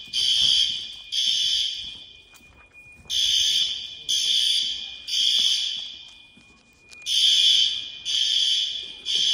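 System Sensor L-Series fire alarm horns sounding the temporal-three evacuation pattern: three high-pitched blasts about a second apart, then a pause, repeating. Each blast echoes on in the hard-walled school corridor.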